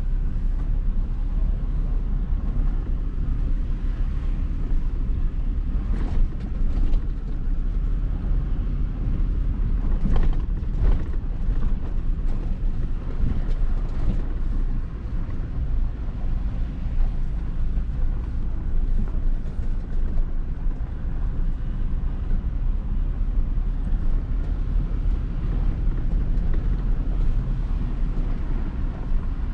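Toyota Tacoma pickup driving slowly on a dirt mountain trail: a steady low engine and tyre rumble, with a few short knocks and rattles from bumps in the track.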